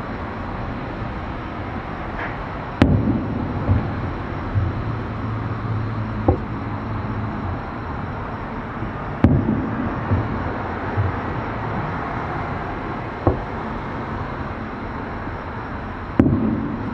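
Distant aerial fireworks shells bursting: five sharp booms a few seconds apart, each followed by a trailing echo, the loudest about three seconds in, about nine seconds in and near the end. A steady background noise runs beneath them.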